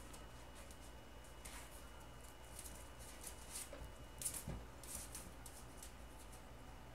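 Norfolk Terrier puppies scampering on a tile floor: faint scratching and pattering of small claws, with a soft thump about four and a half seconds in.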